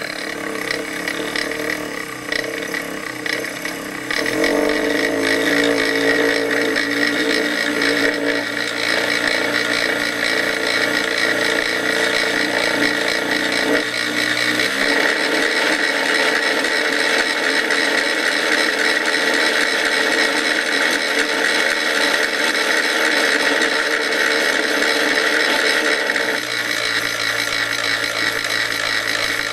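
Home-built ironless axial-flux brushless DC motor running steadily on an R/C speed controller. Its hum shifts to new pitches several times, about 4, 8, 15 and 26 seconds in, as the servo-tester throttle is adjusted.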